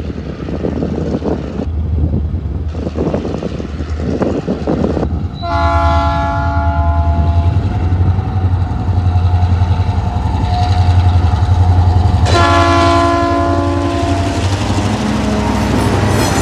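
Tasrail 2050 class diesel locomotives 2051 and 2054 approaching at the head of a coal train, their engines giving a steady low drone. The multi-note horn sounds twice, about two seconds each time: once about five and a half seconds in and again about twelve seconds in. Near the end the lead locomotive passes close.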